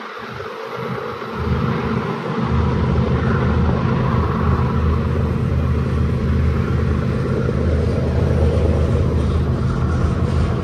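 Diesel-hauled freight train of autorack cars rolling by on a grade: a steady low engine rumble with the rush of steel wheels on rail as the locomotives are throttled up. The low rumble dips briefly in the first couple of seconds, then holds steady.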